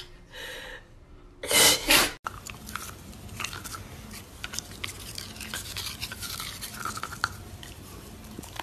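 A French bulldog sneezes twice in quick succession. Then a dachshund chews on a toothbrush, the bristles scraping and clicking against its teeth in a run of small scratchy sounds.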